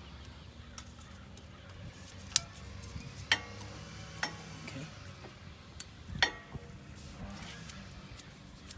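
Sharp metallic clinks and clicks, about half a dozen spaced irregularly, as steel brake pads and their retaining springs are handled and fitted on the caliper assembly. A steady low hum runs underneath.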